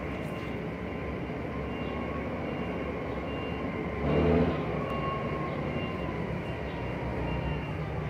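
Steady low mechanical rumble of a running motor, with a faint high tone over it, swelling louder for about half a second around four seconds in.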